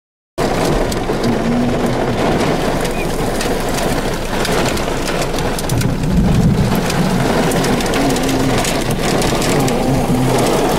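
Heavy rain pelting a vehicle's windows and body, starting abruptly just after the opening, with a low rumble swelling about six seconds in.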